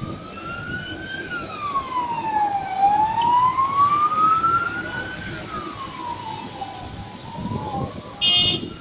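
Emergency vehicle siren wailing, its pitch slowly rising and falling in long sweeps. Near the end comes a short, loud, high-pitched blast.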